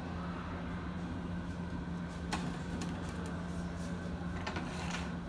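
Steady low room hum, with a few faint clicks about two seconds in and again near the end, as a plastic water bottle and a glass test tube are handled while water is poured.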